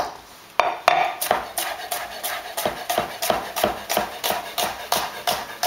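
Chef's knife slicing asparagus spears on a plastic cutting board in quick diagonal cuts: a steady run of sharp knocks of the blade on the board, about three a second, starting about half a second in.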